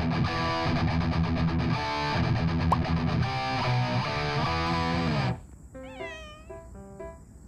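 Background music for about five seconds, then it stops and an orange-and-white cat meows at a dog in drawn-out calls that rise and fall in pitch.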